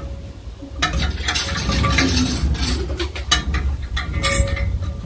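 Metal well chain rattling and clinking as it is paid out over the well rim to lower the bucket into a deep well. It starts about a second in and is busiest in the middle.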